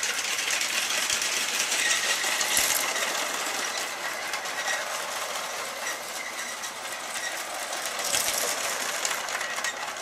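Vintage LEGO toy train running on blue plastic LEGO track: a steady whir from its small electric motor with the wheels rattling over the rails, swelling a little about two and a half seconds in and again near the end.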